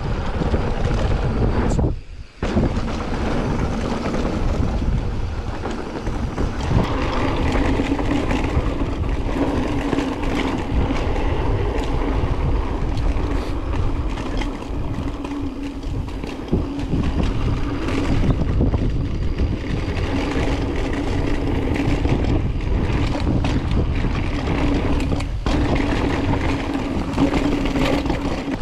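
Wind rushing over the microphone with the rumble and rattle of a mountain bike rolling fast down a dirt bike-park trail. A steady hum comes and goes from about eight seconds in, and the sound cuts out briefly about two seconds in.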